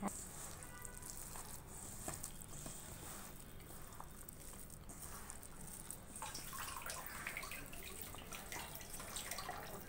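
A hand mixing and squeezing a damp dough of chopped cabbage, onion, gram flour and rice flour in a steel bowl as water is worked in: faint wet squishing and rustling with a few light ticks.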